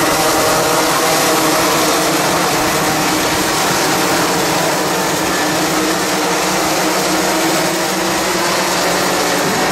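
Racing karts' two-stroke engines buzzing at high revs as a pack races by, several engines' pitches overlapping in a steady, loud drone.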